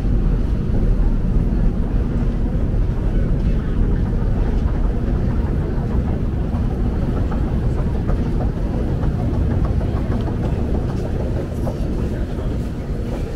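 Steady low rumble of a busy metro station as an escalator runs, with the murmur of the crowd underneath.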